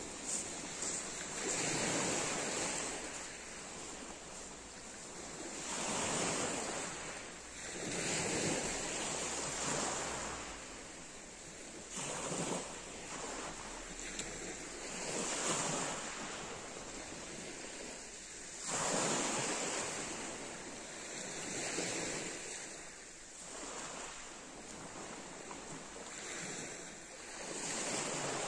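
Small waves breaking and washing up a pebble beach, one surge of surf every three to four seconds.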